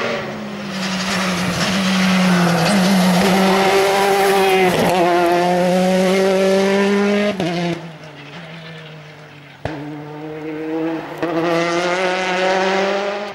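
Rally car engine at high revs, accelerating hard with gear changes as it climbs through hairpin bends. The engine note falls away about eight seconds in, with a single sharp pop a little later, then comes back loud near the end.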